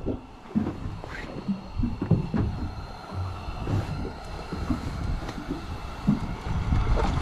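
Irregular low knocks and thumps of hands handling a freshly caught crappie, unhooking it and putting it into a wire fish basket, with a few short clicks.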